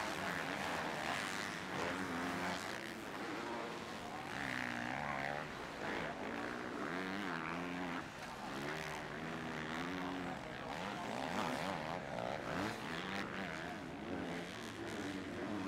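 Several motocross bikes racing, their engines revving up and down in overlapping rising and falling whines as riders work the throttle through the gears.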